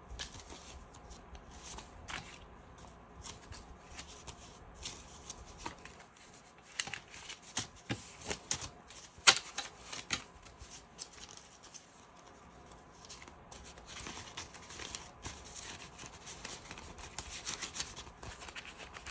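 Paper banknotes rustling and flicking as a stack of dollar bills is thumbed through and handled by hand: a run of short, crisp rustles, with a few sharper snaps around the middle, the loudest about nine seconds in.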